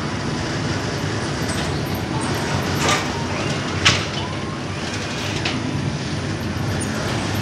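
Machinery of a flatbread production line running steadily, a continuous mechanical rumble and rattle, with a few sharp clacks in the middle.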